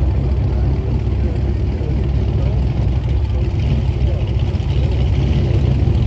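Corvette engine and exhaust running steadily at low revs, a deep even rumble, with faint voices behind it.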